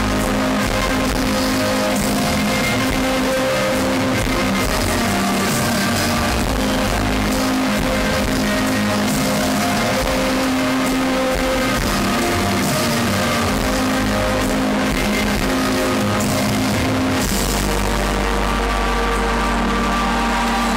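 Live rock band playing a slow song over an arena PA, picked up by a phone microphone, loud and compressed. A held low bass note comes in near the end.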